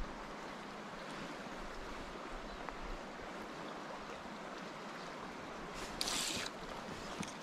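Steady rush of river water flowing through the pool and its riffles. About six seconds in, a brief swish as the fly rod is lifted and the line strips off the water on a strike.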